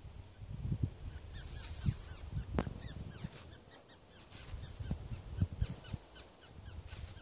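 Mouse squealing in distress while caught by a snake: a run of short, high-pitched squeaks, several a second, starting a little over a second in.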